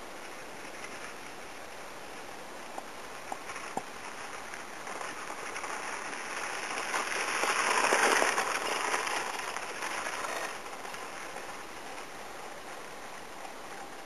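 Pedal go-kart rolling past on an asphalt path: the rough hiss of its wheels on the surface swells to a peak and fades away over several seconds.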